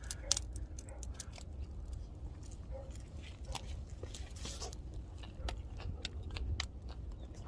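Wood fire crackling with irregular sharp pops over a steady low rumble, mixed with close eating sounds as a grilled oyster is bitten and chewed.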